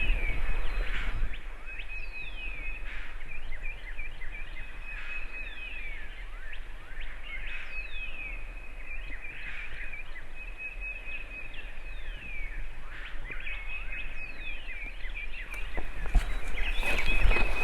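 Woodland birds singing: a steady high trill with repeated down-slurred whistles, over a low background rumble.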